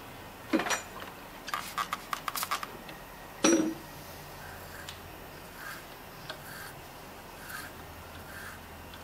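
Metal hand tools clinking and clicking while a half-inch hand tap on an extension is turned into a Subaru EJ aluminium engine block: a sharp metallic knock about half a second in, a quick run of clicks over about a second, and another knock at about three and a half seconds.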